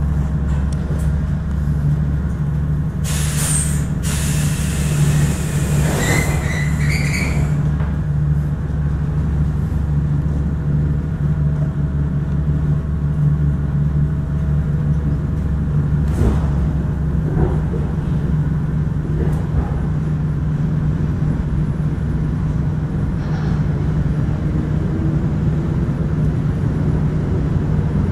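Inside an ER2 electric multiple-unit carriage as it pulls away from the station: a steady low electrical hum, a hiss of air with squealing tones about three seconds in lasting some four seconds, and a motor whine rising in pitch near the end as the train gathers speed.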